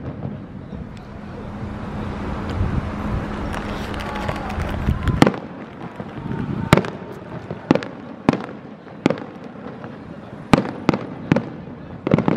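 Aerial fireworks shells bursting overhead. Near the middle comes one loud bang, then a run of sharp bangs follows, roughly one a second.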